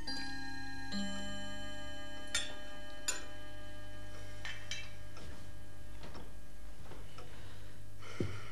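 A chiming clock striking: ringing notes about a second apart that hang on and fade slowly. This is followed by a few light clinks of tableware and a soft knock near the end.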